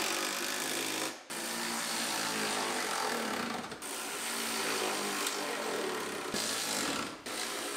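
A power tool tightening the running board's mounting bolts, running in long steady bursts with three brief pauses.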